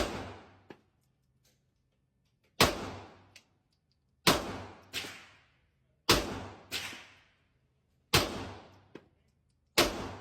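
Gunshots fired one at a time, six shots spaced about one and a half to two seconds apart. Each is a sharp report with a ringing tail, and most are followed about half a second later by a fainter crack.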